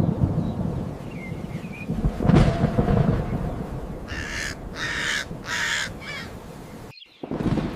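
Thunder rumbling, swelling loudly about two seconds in, with a crow cawing several times in quick succession a little after the middle.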